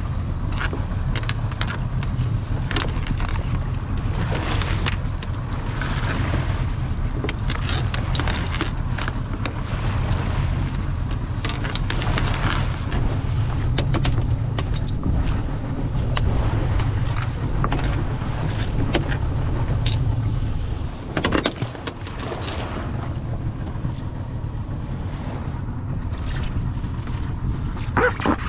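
Small fishing boat's engine running steadily, with frequent knocks and clatter over it. The engine's low drone drops away about two-thirds of the way through, leaving quieter noise and a few knocks.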